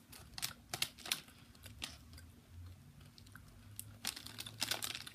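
A person chewing a bite of a crunchy Kind popped salted caramel bar with her mouth closed: a run of small, irregular crunches, thickest near the end.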